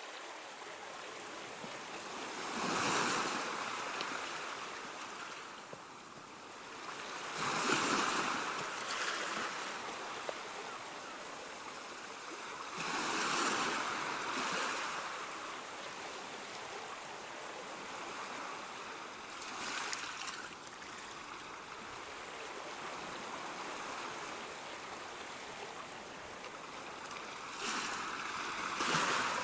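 Ocean waves breaking on a shore: a steady wash of surf with a louder wave crashing about every five to six seconds.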